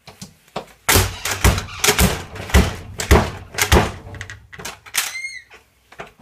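A door is banged shut again and again against a plastic CD jewel case wedged at the door frame, crushing it: a rapid run of heavy thuds about a second in, then a short squeak near the end.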